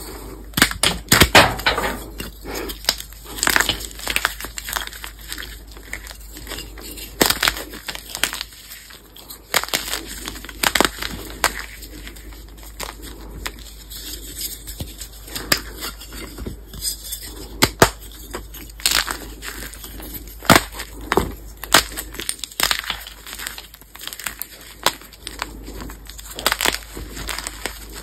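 Pasted gym chalk blocks being snapped and crushed by hand, giving irregular sharp crunches and cracks as the hard chalk breaks into chunks and powder.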